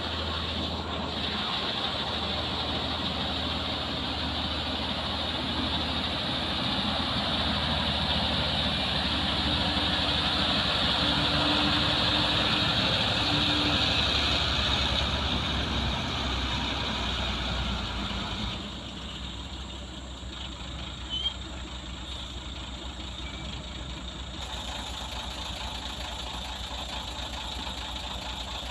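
Heavy 8x4 flatbed truck's diesel engine running as the loaded truck drives up close on a dirt road, growing louder, then dropping to a steady idle about two-thirds of the way through as it stops.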